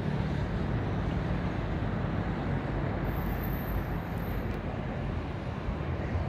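Distant roar of an Airbus A319-111's CFM56 jet engines at takeoff thrust, a steady rumble with a low hum that fades a couple of seconds in.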